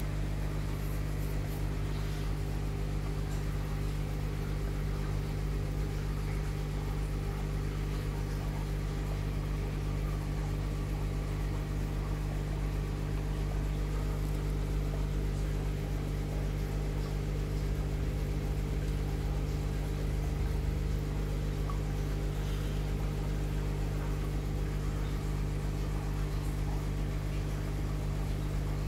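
Steady low hum of an aquarium air pump driving sponge filters, running without change.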